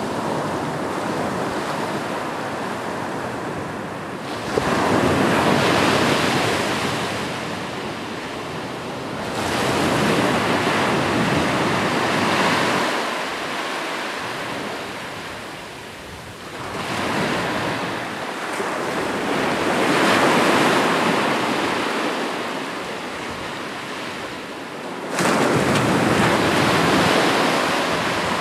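Ocean surf: waves breaking on a shore in about four slow surges. Each swells into a broad rush and then washes back. Two of them break suddenly, about four seconds in and near the end.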